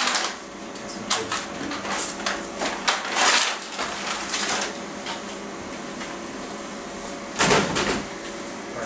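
Irregular rustling and handling noises as gloved hands work a stimulator lead over the surgical drapes, the loudest near the start, around three seconds in and near the end, over a steady equipment hum.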